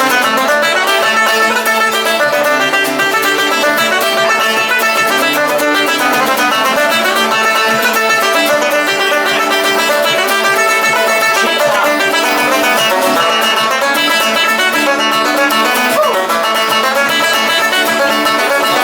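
Traditional Irish instrumental music with a plucked string instrument prominent, starting abruptly.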